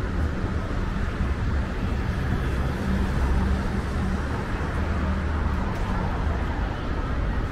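Street traffic: a steady low engine rumble with a hum that holds its pitch.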